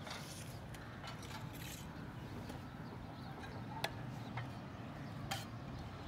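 Outdoor background noise: a steady low rumble with a few short, sharp clicks or taps about two thirds of the way through.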